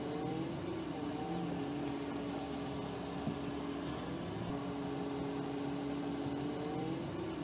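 Steady vehicle engine hum with held tones that slide in pitch now and then, and one faint short knock about three seconds in.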